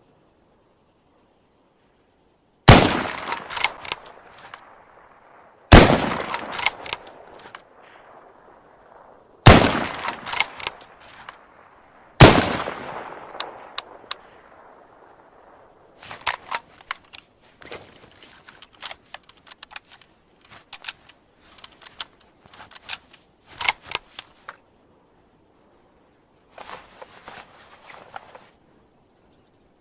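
Mosin-Nagant M91/30 bolt-action rifle (7.62×54mmR) fired four times, one loud shot about every three seconds, each with a long fading echo. A run of smaller sharp clicks and knocks follows, with a last faint cluster near the end.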